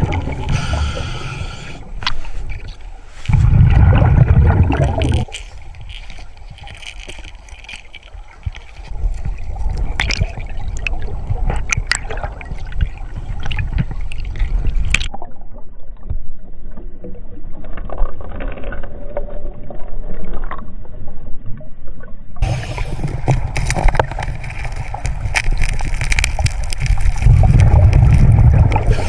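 Water gurgling and sloshing with heavy low rumbles and scattered clicks, as from a camera in and around a river. It comes in several cut segments, and the middle one sounds duller.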